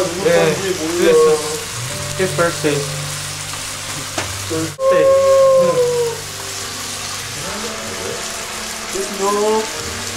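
Young men's voices shouting and whooping without clear words, the loudest a long held yell about halfway through, over a steady sizzling hiss from the kitchen.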